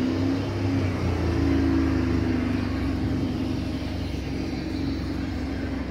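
A motor vehicle's engine running with a steady low drone, with road noise around it.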